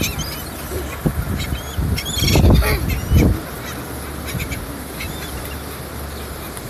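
Birds calling: thin, high chirps come and go throughout, and a louder run of lower calls falls about two to three seconds in.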